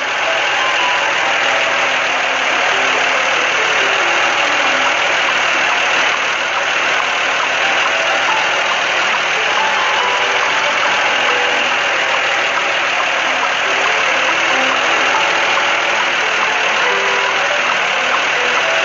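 Steady, loud machine noise of a cartoon concrete mixer truck's engine running as it lays concrete.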